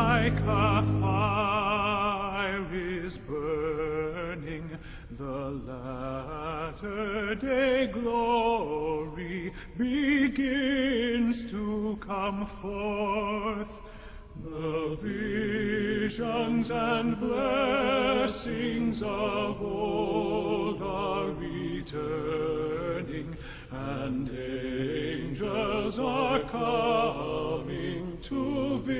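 Music with singing voices, the sung notes held with a strong vibrato.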